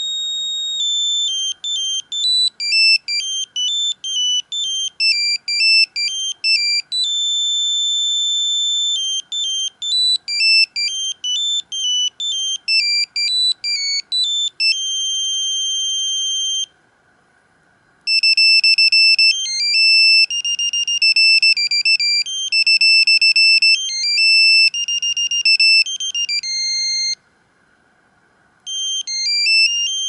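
Samsung SGH-C120 mobile phone playing its built-in ringtones through its small speaker: quick, high-pitched electronic melodies of stepped beeping notes. The tune breaks off twice, about two-thirds of the way in and again near the end, and a different ringtone starts each time.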